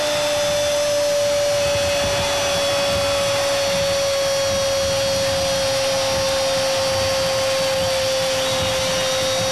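A football commentator's long held goal cry, one unbroken note lasting the whole stretch and slowly sinking in pitch, over the noise of a celebrating stadium crowd.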